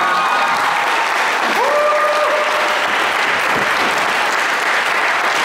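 Audience applauding after a stage performance, as the last notes of the music die away at the start. One brief whoop rises above the clapping about two seconds in.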